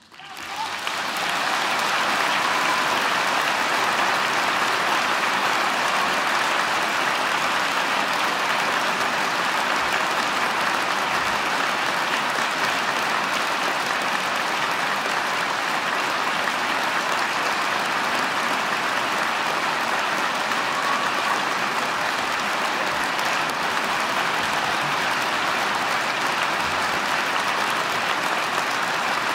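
Large concert-hall audience applauding, rising to full strength within about two seconds and then holding steady.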